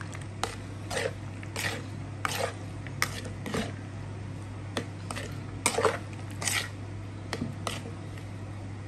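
Metal spoon stirring and tossing wet, vinegar-soaked raw anchovies and onions in a mixing bowl: uneven short clinks and squishy scrapes, about one or two a second. A steady low hum runs underneath.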